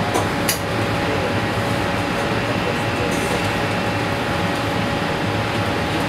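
Steady rushing noise of a commercial kitchen's ventilation and extraction fans, with a faint steady hum under it. A couple of light clicks come about half a second in.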